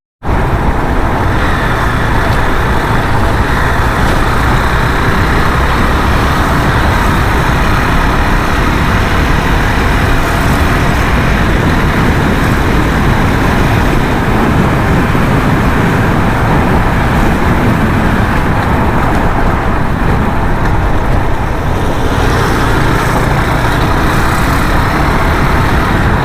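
KTM Duke 390 motorcycle being ridden, a loud steady rush of wind and road noise over the running engine.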